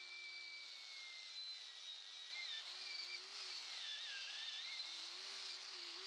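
Angle grinder with a twisted-knot wire wheel running, wire-brushing the cast iron pump casing; its steady whine wavers up and down in pitch from about two seconds in as the wheel is pressed against the metal.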